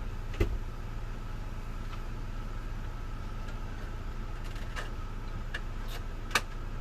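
Mini Cooper S (R53) supercharged four-cylinder engine idling steadily. A few sharp clicks and knocks from handling on top, the loudest about half a second in and another near the end.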